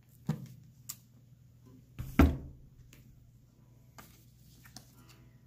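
Books being handled: one set aside and a hymnal picked up and opened. There is a dull thump about two seconds in and lighter knocks and clicks around it, over a low steady hum.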